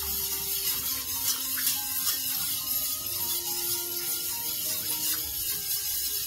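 Wire whisk scraping and rattling steadily against the bottom and sides of a stainless steel pot, stirring a thin béchamel of milk, butter and flour as it heats toward a boil.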